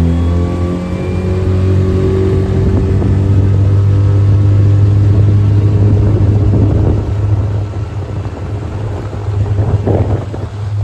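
Skiff's outboard motor throttling up, its pitch rising over the first couple of seconds, then running hard at speed with a steady low drone, easing slightly in loudness about two-thirds of the way through.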